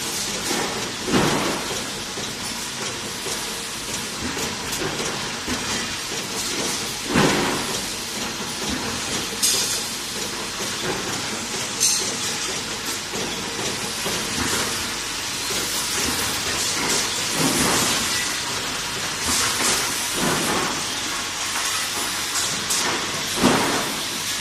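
Resistance spot welder joining steel wire basket joints: a short sharp snap or clack every few seconds, irregularly spaced, over a steady hissing factory noise.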